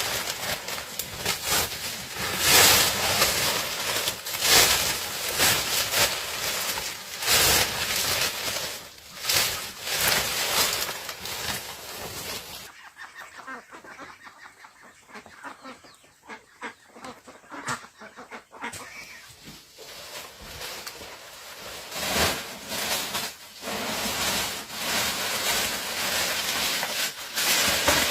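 Chickens clucking amid repeated bursts of rustling and handling noise, which drop to a quieter stretch of small clicks about halfway through before picking up again.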